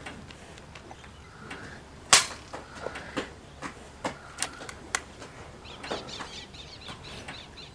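A single moderated shot from a Daystate Red Wolf Safari .22 PCP air rifle, a sharp crack about two seconds in. It is followed by a run of smaller sharp clicks and ticks. Near the end comes a brief scratchy flutter.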